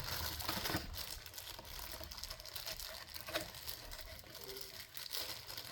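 Faint handling noise: scattered rustles and light clicks from hands handling small fittings and the phone.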